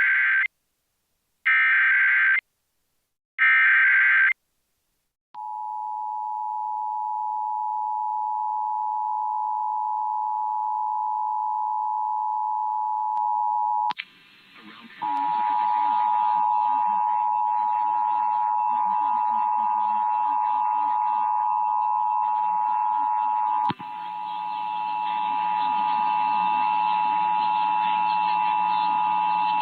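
Emergency Alert System test: three short screeching data bursts of the SAME header, then the steady two-tone EAS attention signal. The tone drops out briefly about fourteen seconds in and resumes with faint background audio under it.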